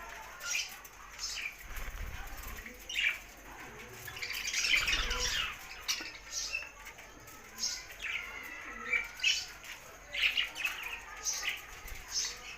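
Budgerigars chirping and chattering: a string of short, high squawks and chirps, with a louder, denser burst of chatter about five seconds in.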